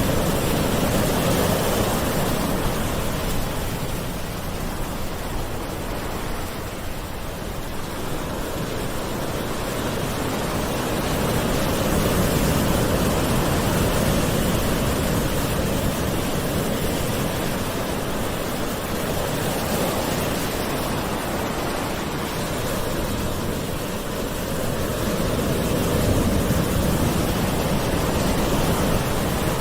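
Gentle sea waves washing ashore: a steady rushing hiss that slowly swells and eases, fuller around twelve seconds in and again near the end.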